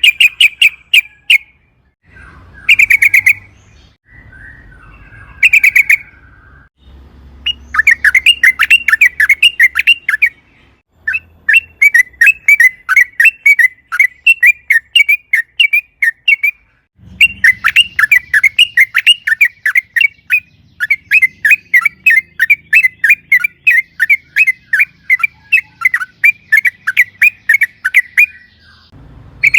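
Yellow-vented bulbul (trucukan) singing a long, rapid run of chattering notes. It starts with a few short bursts, then goes into long unbroken runs that last around ten seconds each.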